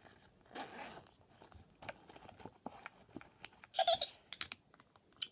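Scattered light clicks and taps of a toy doll and a zippered bag being handled, with a soft rustle near the start. About four seconds in, a brief high-pitched voice sound.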